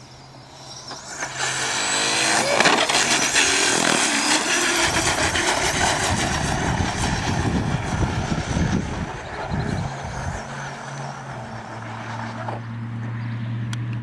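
Electric RC truck's brushless motor whining at full throttle as the truck skims across a pond on its tyres, with a hiss of water spray. The whine climbs in pitch over the first couple of seconds, then slowly fades as the truck runs away.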